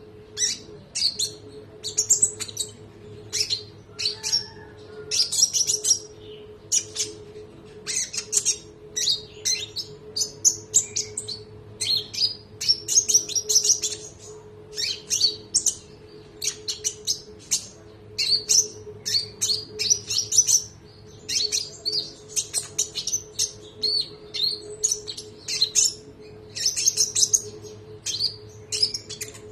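A konin (olive-backed sunbird) singing in quick runs of sharp, high chirps and trills with short breaks between phrases. A faint steady hum runs underneath.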